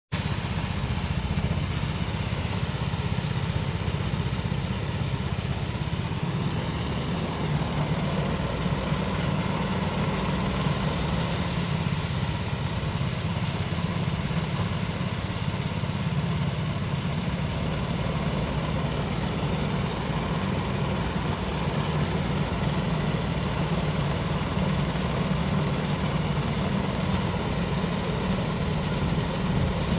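Engine-driven rice thresher running steadily, a continuous even engine drone with no change in speed.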